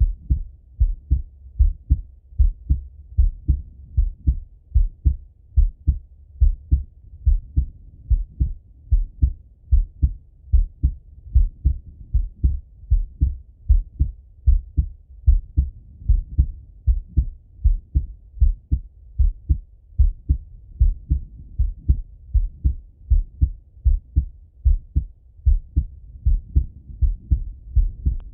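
A man's heartbeat heard through a Littmann stethoscope: a steady, even run of low, muffled thuds.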